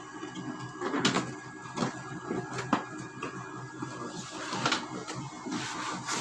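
Cardboard box being opened and handled: flaps bent back and scraped, with several sharp knocks, and a rustling near the end as the boxed pan slides out.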